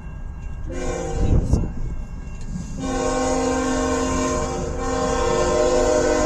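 CN freight diesel locomotive's air horn sounding for the grade crossing: a first blast begins about a second in, then a louder long blast of several tones together starts about three seconds in and holds, over the low rumble of the approaching train.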